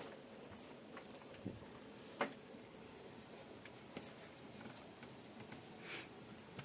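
Hailstones knocking on window glass in a thunderstorm: scattered, irregular sharp taps, the loudest about two seconds in, over a steady faint hiss of rain.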